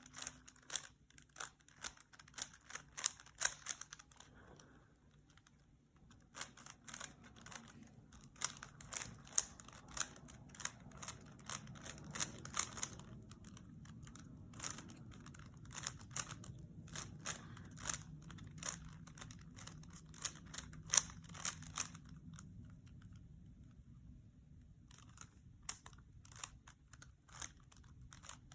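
Rubik's Cube being turned by hand during a solve: quick runs of sharp plastic clicks as the layers snap round, broken by a couple of pauses of a few seconds.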